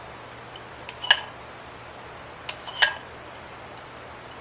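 Chopsticks clinking against a glass mixing bowl of raw egg, three light taps with a short ring from the glass: one about a second in, two close together past the middle, while the thick egg white is lifted and cut apart.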